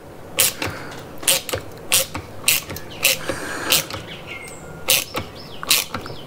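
Sharp, uneven clicks of a hand tool tightening the carburetor mounting bolts on a small two-stroke trimmer engine, drawing the carburetor down onto its gaskets.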